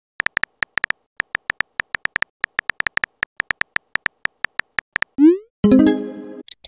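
Texting-story app sound effects: a fast stream of short high key-tap blips as a message is typed, then about five seconds in a rising swoosh as it is sent, followed by a short chime that fades.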